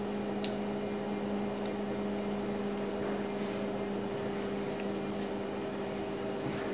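Steady electrical machine hum with a faint hiss, with a few faint light clicks, the plainest about half a second and under two seconds in.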